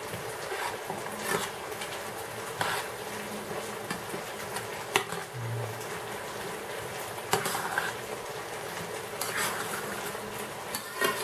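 A hand squelching and squeezing chopped raw chicken, onion and mayonnaise in a bowl, in irregular wet squishes. A steady hum runs underneath.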